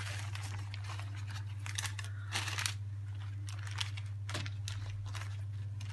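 Moistened baking paper crinkling and rustling in several short bursts as it is spread and pressed down over a roasting tray, over a steady low hum.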